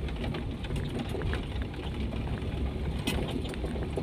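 Cabin sound of a lowered Toyota Kijang driving slowly over a rough gravel road: a steady low engine and road rumble with many small clicks and rattles from stones and the body. One sharper knock comes about three seconds in.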